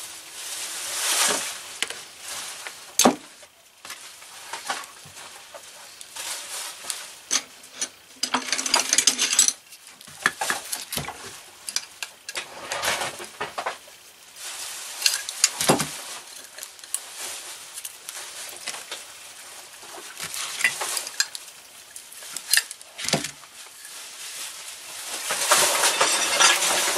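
Hand tools and metal engine parts of a Maytag Model 72 twin-cylinder engine being worked on a workbench during disassembly: scattered clinks and knocks of steel on cast metal, with stretches of scraping and rasping.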